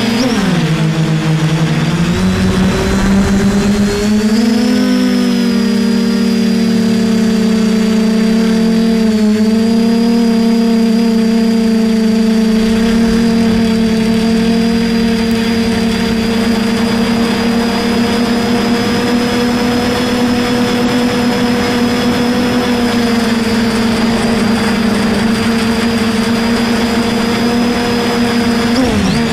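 DJI F450 quadcopter's brushless motors and propellers humming steadily in flight, heard from the camera mounted on the frame, with a thin high whine above. The pitch dips in the first couple of seconds, climbs about four seconds in, then holds steady.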